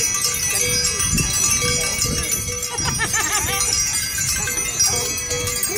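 Many bells ringing together in a continuous jangle of overlapping steady tones. People's voices call out over it.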